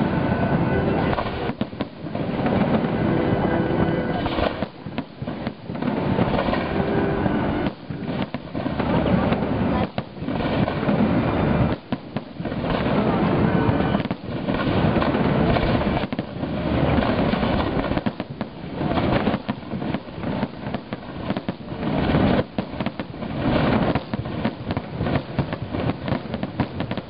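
Fireworks display: aerial shells bursting one after another in a dense barrage of bangs and crackling, the loudness coming in waves that swell for a second or two and then dip.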